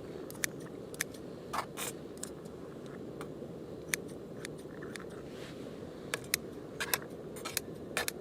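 Light metal utensils clicking and tapping against cookware and dishes, a dozen or so scattered clicks, some in quick pairs, over a steady low rushing noise.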